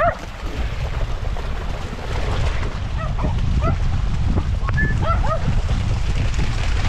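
A dog barking in short, high barks, several in quick pairs, which the walker puts down to the wind. Heavy wind rumble on the microphone runs underneath.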